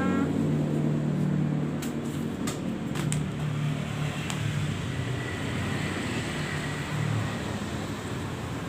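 Steady low mechanical hum, with a few sharp clicks and taps of stationery and packaging being handled about two to three seconds in and once more a second later.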